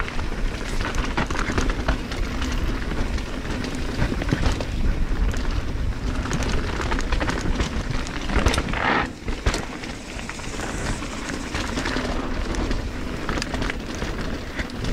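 Mountain bike descending a loose dirt trail: a steady rumble of tyres over dirt and stones, with constant small clicks and rattles, and wind buffeting the microphone.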